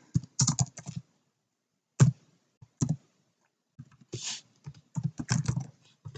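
Typing on a computer keyboard in uneven runs of keystrokes: a quick run in the first second, single keystrokes about two and three seconds in, then another run from about four seconds to near the end.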